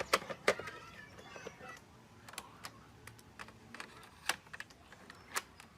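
A series of sharp, irregular clicks and taps, about a dozen, with the loudest near the start and about four and five and a half seconds in.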